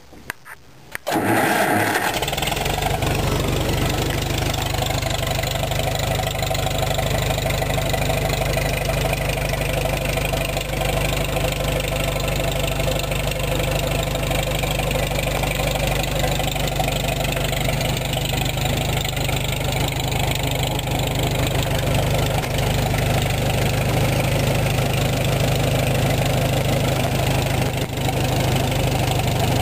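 A 1950–51 Farmall M tractor's four-cylinder engine is cranked by its starter for about a second, catches, and then runs steadily.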